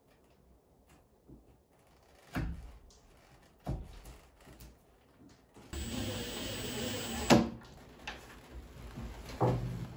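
A few knocks from door hardware being fitted into the edge of a wooden door. Then, just before the middle, a cordless drill runs for about a second and a half and stops with a sharp click, followed by more knocks.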